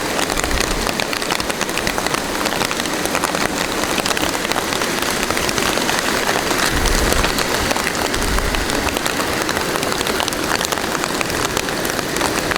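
Steady rain falling, with a dense patter of individual drops ticking throughout.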